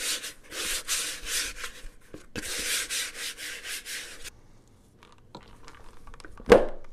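A hand rubbing around the inside of a plastic mixing bowl in repeated strokes for about four seconds, coating it so the dough won't stick. Near the end there is one sharp knock as the dough is tipped out of the food processor bowl into it.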